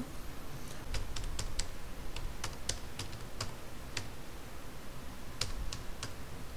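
Computer keyboard being typed: about a dozen separate keystrokes in short irregular runs with pauses between.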